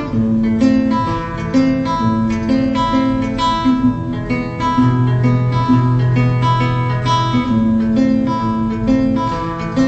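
Acoustic guitar played live, picked note by note: a high note repeated about every second over changing bass notes.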